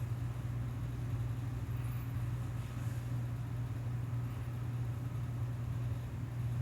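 A steady low mechanical hum that holds level throughout, with nothing else standing out.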